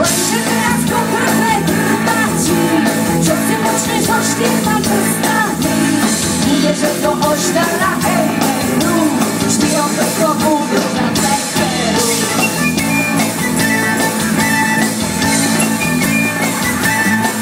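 Live band performing a Slovak folk song in a rock arrangement: electric guitar, drum kit and voices singing, recorded on a phone.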